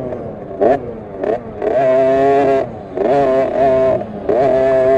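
KTM SX50 minibike's 50cc two-stroke engine revving hard in bursts: a couple of short blips, then high revs held at a steady pitch about two seconds in, a brief easing off, and high revs held again from near the end.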